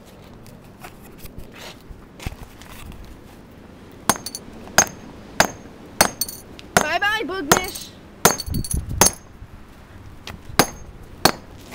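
Hammer striking a small object on asphalt: a run of about ten sharp, ringing knocks starting about four seconds in, spaced roughly half a second to a second apart. A brief voice cuts in midway.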